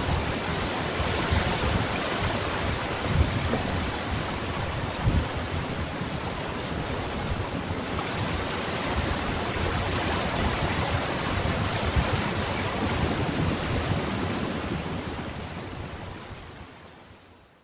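Ocean surf breaking: a steady rush of water with a few low thuds, fading out over the last few seconds.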